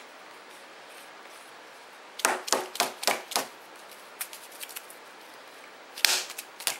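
Sharp knocks and clicks of a spice jar being handled: a quick run of about five hard knocks a couple of seconds in, some lighter clicks, then another loud knock near the end.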